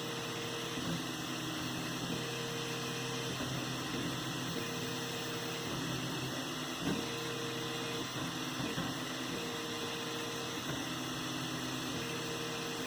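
3D printer running a print: a steady fan hum, with the stepper motors whining in short steady tones that start and stop every second or two as the axes move.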